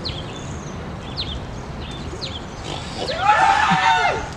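A startled passer-by screams in fright about three seconds in: one loud, high, arching cry lasting just over a second.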